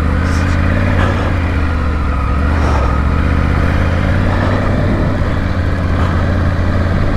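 Triumph Tiger adventure motorcycle's three-cylinder engine running steadily at low speed while riding up a loose dirt track.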